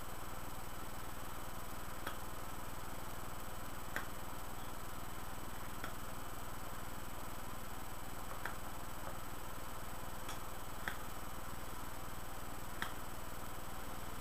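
Soft, faint clicks at uneven intervals of a second or two, from lips puffing on a curved tobacco pipe's stem, over a steady electrical hum and hiss.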